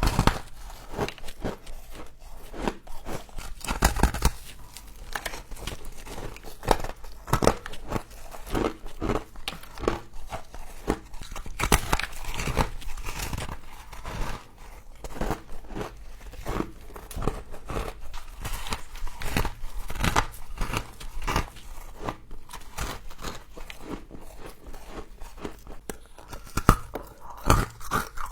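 Close-up crunching and chewing of frost: a dense run of crackling bites and chews, with a few louder crunches about four seconds in, around twelve seconds in and near the end.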